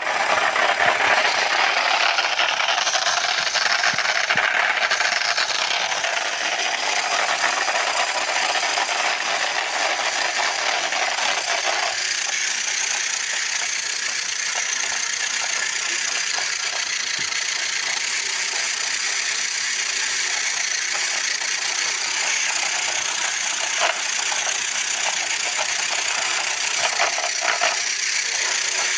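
Toy remote-control cars' small electric motors and plastic gearboxes running hard, a steady whirring with rattle; the lower part of the sound thins about twelve seconds in.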